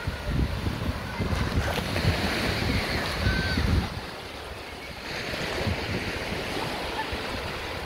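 Small sea waves washing onto a sandy shore, with wind rumbling on the microphone that eases off about four seconds in.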